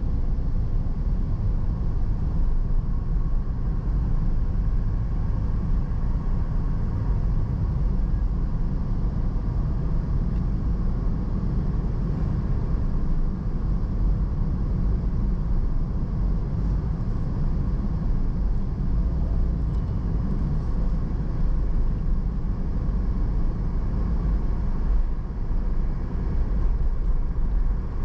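Car driving along a road: a steady low rumble of road and wind noise.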